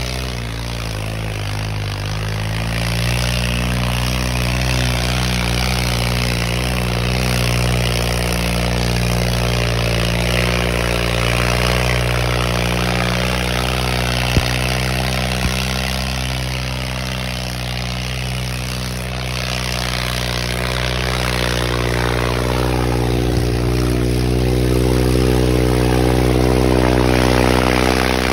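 New Holland 3630 tractor's diesel engine running steadily under throttle, its note shifting slightly and growing a little louder near the end.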